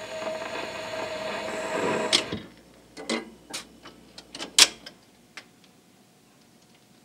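A 78 rpm record on a 1942 Seeburg 8200M jukebox plays out its last few seconds of music. Then the record-changer mechanism cycles: the tone arm lifts and swings clear with a run of clicks and clunks, the loudest about four and a half seconds in.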